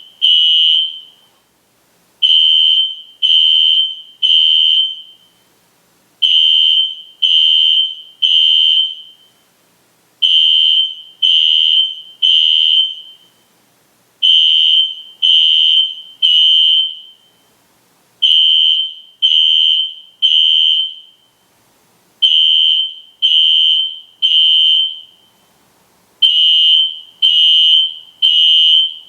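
System Sensor SpectrAlert Classic fire alarm horn sounding loudly in the temporal-three evacuation pattern. Each cycle is three shrill, high-pitched blasts of about half a second, then a pause of about a second and a half, repeating every four seconds.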